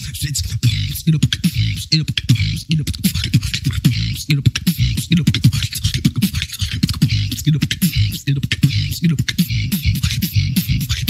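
Human beatboxing in a fast, technical routine: rapid mouth-made kicks, clicks and snares packed over low bass sounds, with no breaks.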